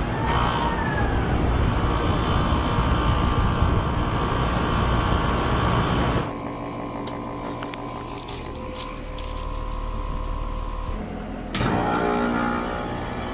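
HVAC units running just after start-up: a steady mechanical drone of fan and motor with a faint steady whine. The sound changes abruptly about six seconds in and again near the end as a different unit is heard.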